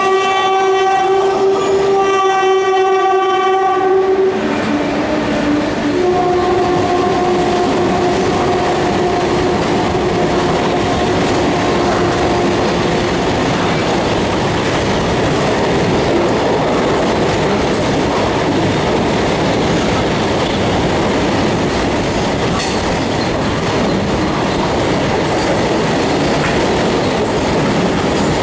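Indian Railways WAG-7 electric freight locomotive sounding its horn in long blasts, the pitch dropping a little about four seconds in, with a last long blast ending about twelve seconds in. Its rake of BCNA covered wagons then rumbles and clatters past at speed.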